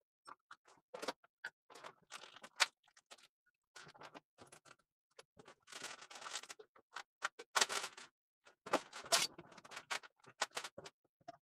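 Plastic and bubble-wrap packaging crinkling and rustling, with small clicks and knocks of parts being set down, as a milling-machine power feed is unpacked; the rustling is denser and louder from about six seconds in.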